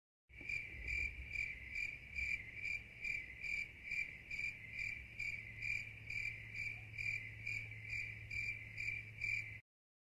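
Cricket chirping steadily on one high pitch, a little over two chirps a second, over a low steady hum; it starts and stops abruptly.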